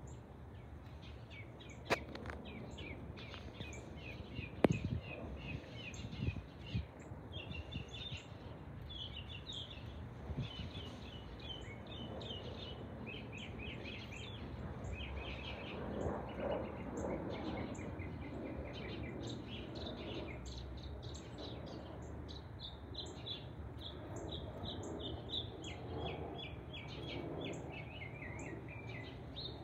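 Small birds chirping over and over in short rapid notes, over a steady low background noise. Two sharp knocks within the first five seconds.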